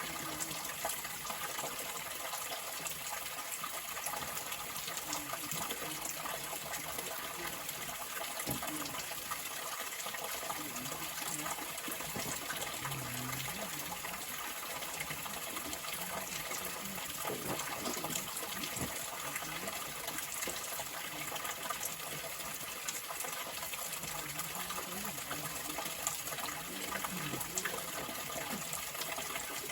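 Stream water flowing in a steady, unbroken rush.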